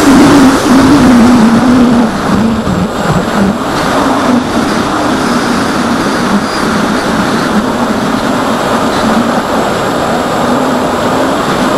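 Electric motor and propeller of an AXN foam RC plane droning in flight, mixed with wind rush, as picked up by the plane's onboard camera. The drone wavers in pitch and turns quieter about two seconds in.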